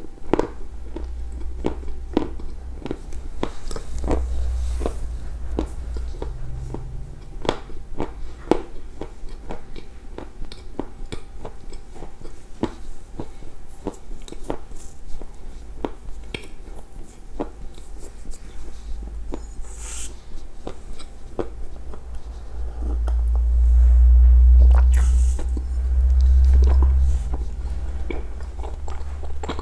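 Close-miked chewing of a mouthful of edible clay: a steady run of short mouth clicks and crunches. A low rumble swells for a few seconds about two thirds of the way through.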